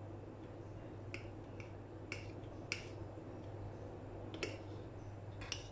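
Metal fork tines clinking against a ceramic plate while two forks pull apart soft food: about seven short, sharp clinks at irregular intervals.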